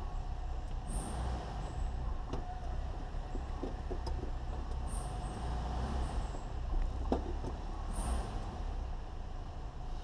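Car engine idling, heard from inside the cabin as a steady low rumble, with three short high hisses about one, five and eight seconds in.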